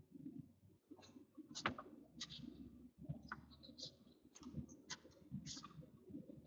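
Faint, irregular clicks and rustles of a sheet of paper being handled, with one sharper click a little under two seconds in.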